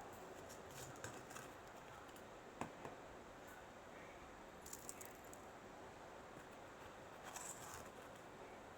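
Near silence with a few faint, scattered light clicks and clinks of small hard objects being handled.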